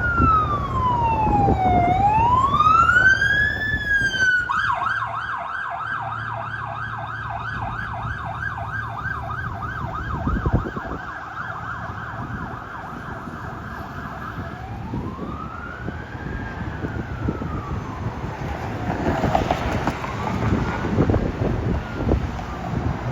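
Fire apparatus siren on a run. It sounds a slow rising-and-falling wail for the first four seconds or so, switches to a fast yelp for about ten seconds, then returns to the wail, over a low rumble.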